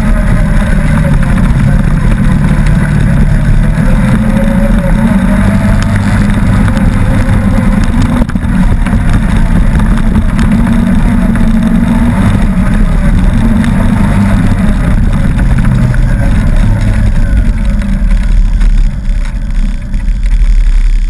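Off-road vehicle's engine running under way on a dirt trail, its pitch rising and falling with the throttle over a steady low rumble.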